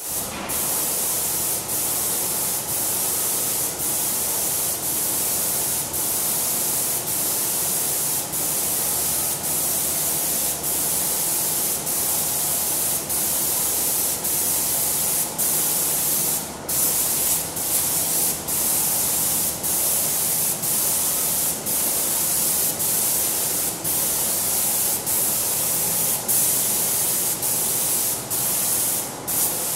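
Airless paint sprayer's gun spraying dispersion paint through a 525 tip: a steady, high hiss of atomised paint, broken by brief dips about once a second.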